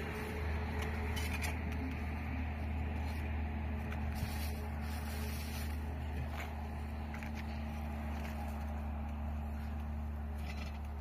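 A steady low engine hum running without a break, with a few faint ticks over it.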